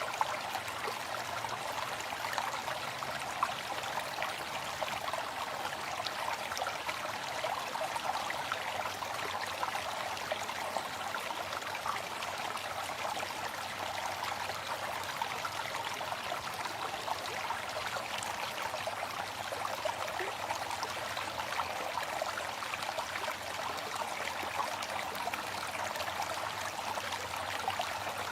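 Waterfall: falling water splashing and rushing steadily, a continuous even wash of noise.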